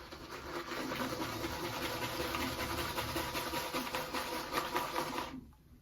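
Shaving brush working a soap lather mixed with coconut water: a steady wet, scratchy swishing that stops suddenly about five seconds in.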